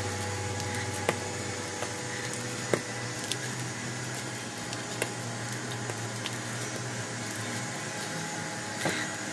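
Bread dough being kneaded by hand with butter worked into it, squishing as it is pressed and smeared across a stone countertop, with a few sharp clicks and a steady low hum underneath.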